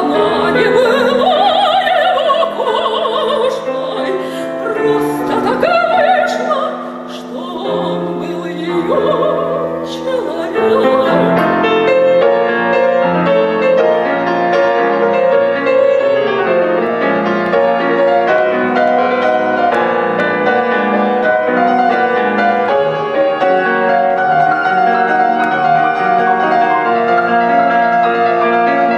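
A female operatic voice sings with wide vibrato over grand piano accompaniment. About eleven seconds in the voice stops and the piano plays on alone.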